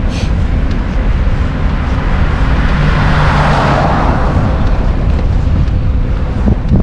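A car passing, its tyre and engine noise swelling and fading about three to four seconds in, over a steady rumble of wind on the microphone.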